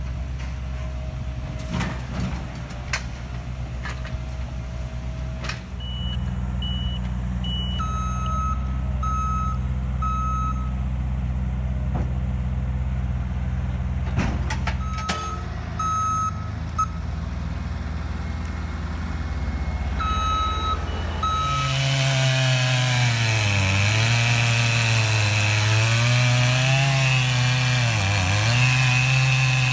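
A truck engine running with a reversing alarm beeping in several short runs as the vehicle backs up. About two-thirds of the way in, a chainsaw takes over, cutting into wood, its engine note dipping under load and recovering.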